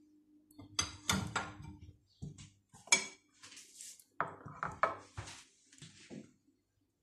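Metal ladle clinking and scraping against a steel pot and a porcelain bowl as cooked chickpeas are spooned out: a run of sharp clinks, the loudest about three seconds in, with more knocks of crockery near the end.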